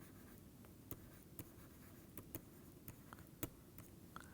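Faint pen writing: scattered light ticks and scratches of a pen or stylus over a low background hiss.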